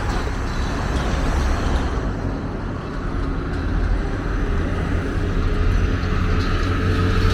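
Road traffic: motor vehicle engines running, a steady rumble that grows a little louder near the end.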